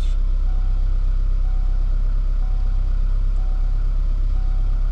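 A 1994 Saab 900S's four-cylinder engine idling steadily, with a faint short beep repeating about once a second.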